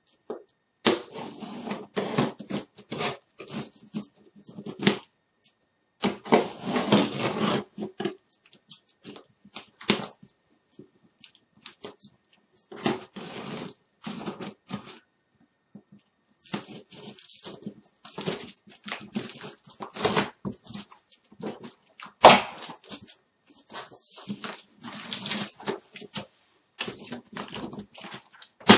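Packing tape and plastic stretch wrap being torn and peeled off a cardboard shipping box, in irregular bursts of crackling and rustling with cardboard scraping and clicks, and one sharper snap about three quarters of the way through.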